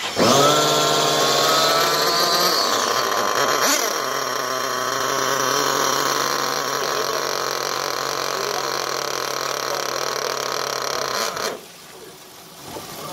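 A motor starts abruptly, its pitch rising over the first couple of seconds, then runs at a steady pitch and cuts off suddenly near the end.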